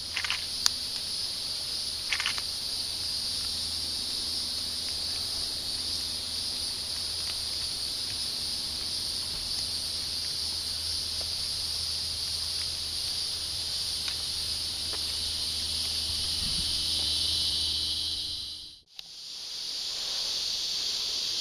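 Insects droning in a steady, high-pitched chorus, with a few faint clicks near the start.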